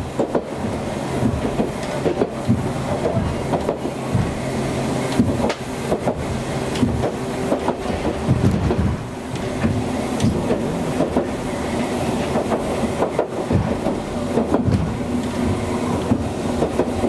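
Hankai Tramway streetcar running along its line, heard from inside the car: a steady running hum with wheels knocking over rail joints at irregular intervals.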